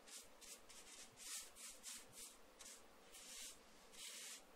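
A paintbrush swishing glaze onto the painted side of a cabinet in big strokes: a quick run of faint brushing swishes, about two to three a second.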